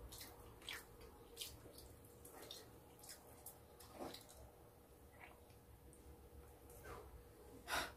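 Faint, sparse wet clicks and smacks of eating: a mouth chewing roast chicken and fingers picking at the meat, one sound every second or so, the loudest near the end.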